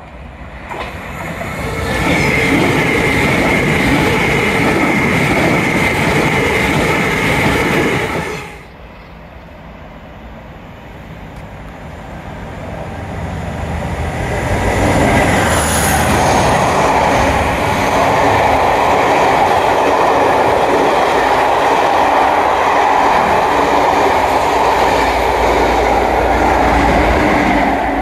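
An electric train passes at speed with a high steady whine, dying away about eight seconds in. After a short lull a diesel locomotive hauling coaches runs through, its noise building to a loud, steady rush of wheels and engine, with a deep rumble near the end as the locomotive comes close.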